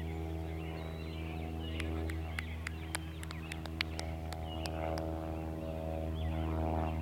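A steady low mechanical hum, like a motor running, with birds chirping over it. A quick run of sharp clicks comes in the middle.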